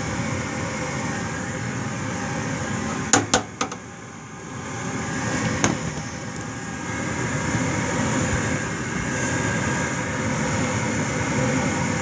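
Gas furnace running with a steady motor hum. About three seconds in, a quick cluster of clicks comes and the hum drops away, then builds back up over a few seconds and runs steadily again as the furnace goes through another start-up attempt. The furnace has been shutting down on a suspected bad flame sensor.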